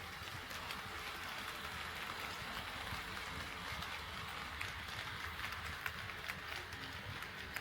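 HO scale model train running on sectional plastic-roadbed track: a steady whirr of motor and wheels with a low rumble and scattered clicks as the wheels pass over the rail joints.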